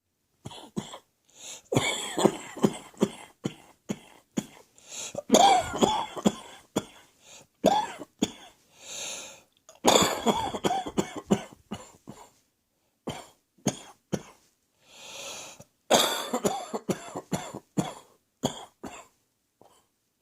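A person coughing in several fits of rapid, sharp coughs, with a long breath drawn in between some of the fits. It is a chesty cough from a cold that the owner feels is heading for the chest.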